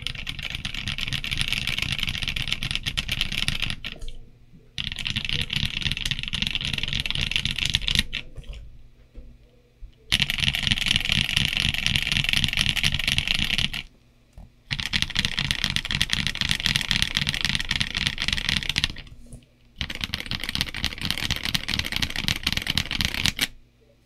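Fast typing on an MKC75 mechanical keyboard built plateless over a case foam sheet, with Kailh Cream linear switches, WS stabilizers and doubleshot ABS keycaps: dense runs of key strikes in five stretches broken by short pauses.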